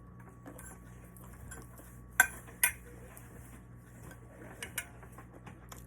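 Eating utensils clinking against a plate: two sharp clinks about half a second apart a little after two seconds in, then two softer taps near the end, with faint small clicks between.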